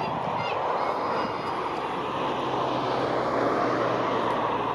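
Jet airliner's turbofan engines running, a steady rushing noise that swells slightly through the middle.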